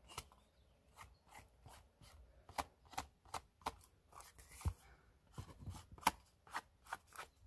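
A brown ink pad dabbed again and again against the edges of a paper card to distress them: a run of light, irregular taps, about two or three a second.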